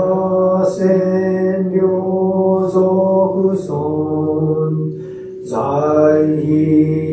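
A man chanting a Buddhist sutra in Japanese, holding long even tones on one note, dropping to a lower note a little past halfway, pausing briefly for breath and going on.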